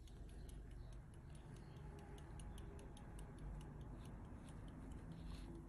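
Antique silver verge-fusee pocket watch by George Byfield, London, circa 1775, ticking: the quick, even, faint ticks of its running verge escapement, over a low background rumble.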